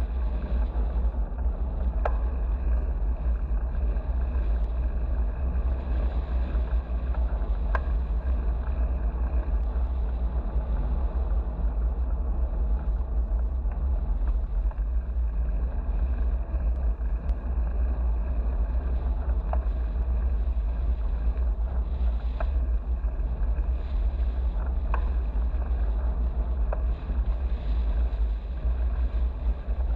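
Steady wind rumble on a bicycle-mounted action camera's microphone while riding, over a hiss of tyre and road noise, with a few faint ticks.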